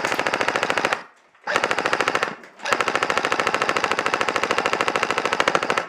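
Airsoft rifle firing on full-auto in three bursts: a short one, a shorter one about a second and a half in, then a long burst of about three seconds, each a rapid, even rattle of shots.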